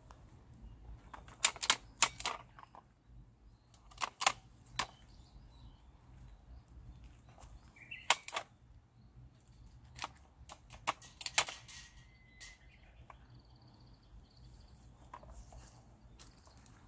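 Sharp clicks from hand tools working grapevine shoots, coming in short clusters of two to four every few seconds.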